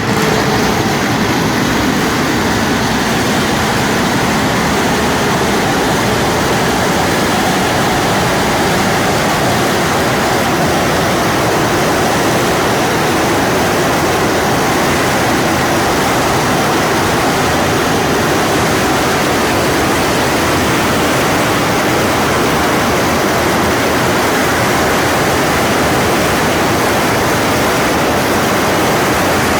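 Firework fountain spraying sparks: a loud, steady hiss that keeps an even level for the whole half-minute, with no bangs or crackles.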